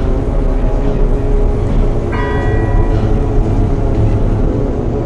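Dark ambient music: a dense, steady low drone. About two seconds in, a bright bell-like tone with several overtones is struck and fades within a second.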